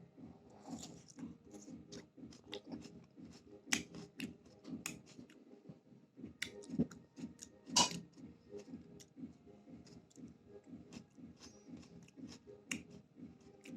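A person chewing raw tomato in steady, rhythmic mouthfuls, with wet smacks and sharp clicks; the loudest come about a third of the way in and past the middle.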